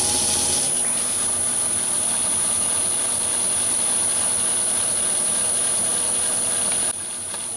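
Myford ML7 lathe running with a steady high-pitched whine; the lower working sound of the cut stops under a second in. Near the end the motor is switched off and the sound drops as the spindle starts to run down.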